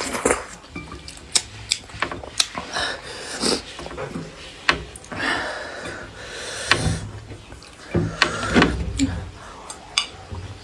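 Close-miked eating sounds of noodle soup: slurping and chewing, with sharp clicks of utensils against the bowl scattered throughout and longer slurps about halfway through and near the end.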